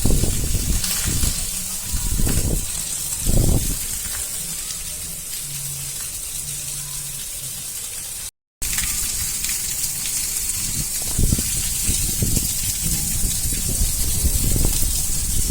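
Steady heavy rain hissing as it falls, with occasional brief low bumps. The sound cuts out for a moment just past the middle.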